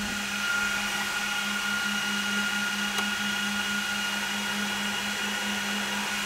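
Cooling fans of a Juniper SRX240 router running steadily, a constant hum with a higher whine over it; one fan is a little obnoxious. A single small click about three seconds in.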